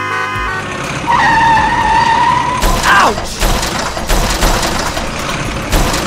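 Background music, then a noisy, rumbling truck-engine sound effect. Before it, a steady whistle-like tone slides sharply down about three seconds in.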